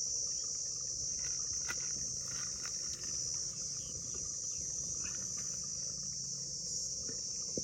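Steady, high-pitched chorus of insects, like crickets, with a few faint light clicks over it.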